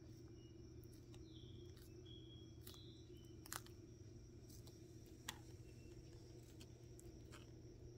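Hermann's tortoise biting and tearing a romaine lettuce leaf: faint, scattered crisp clicks, two louder ones near the middle, over a low steady hum.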